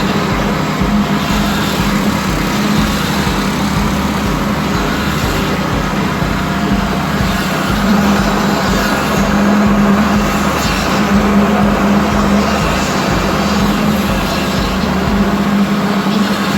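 Engine of heavy concreting machinery running steadily, with a constant drone and a low, evenly repeating throb underneath.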